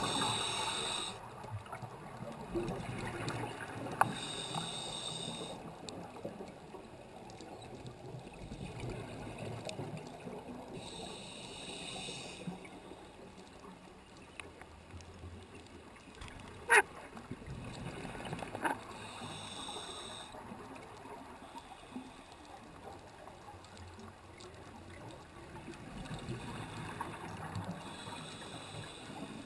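Underwater ambience picked up by a camera in its housing on the seabed: a low, steady wash of water noise with a faint hiss that swells and fades every several seconds, and a few sharp clicks, the loudest about two-thirds of the way through.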